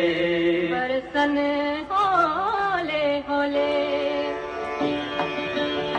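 Music in an Indian classical style. In the first half the melody slides and bends between notes, and from about three and a half seconds in it settles into held notes over a drone, with a few plucked strikes.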